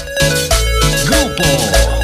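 Dance-band music with a heavy, steady bass beat, held chords and sliding notes from about a second in.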